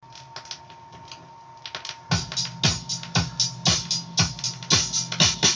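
A drum beat playing from a 7-inch vinyl single on a turntable: light cymbal-like ticks at first, then from about two seconds in a steady kick-drum beat at about two hits a second, with lighter hits between.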